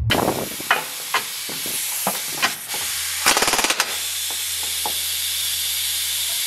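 Impact wrench hammering on a suspension bolt in a short burst about three seconds in, after a few scattered clicks, over a steady hiss.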